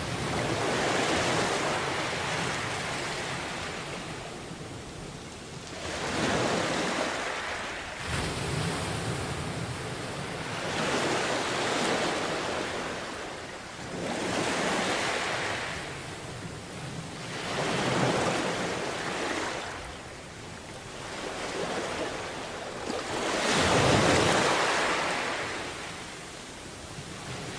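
Sea waves washing onto a beach, surging and falling back in repeated swells every few seconds.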